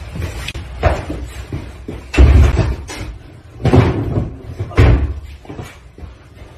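A series of loud bangs and thuds from couch cushions and furniture being shoved and knocked about, about five in all, the loudest a little over two seconds in.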